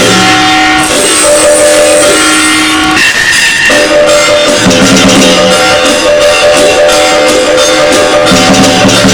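Music for bian lian, the Sichuan opera face-changing act: held notes that change pitch a few times over busy, steady percussion.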